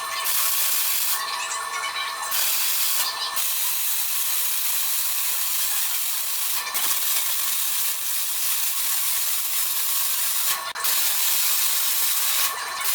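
MIG welding arc on steel: a steady crackling hiss that stops and restarts a few times between beads.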